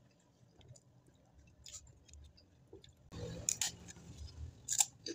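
Close-up mouth sounds of chewing, with soft small clicks, then from about three seconds in, biting and crunching a crisp fried cracker, with a few sharp, loud crunches.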